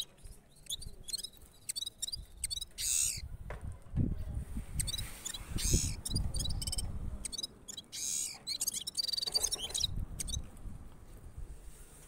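Caged gulsar, a small streaked finch, singing: quick runs of high chirps and twitters broken by a few longer buzzy phrases. A low rumble sits under the song in the middle.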